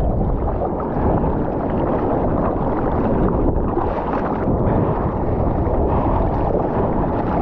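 Wind buffeting the microphone in a steady low rumble, mixed with water rushing and splashing past a surfboard as it moves through the sea.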